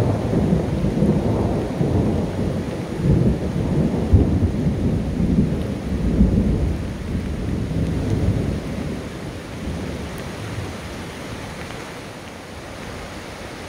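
Thunderstorm: deep, continuous rumbling of thunder over steady rain, loud at first and easing off after about nine seconds.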